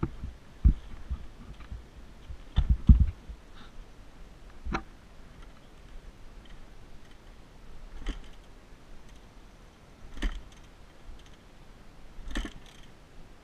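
Scattered clicks, knocks and a few low thumps from a dirt bike being handled over rocks with its engine off, the loudest pair of thumps about three seconds in.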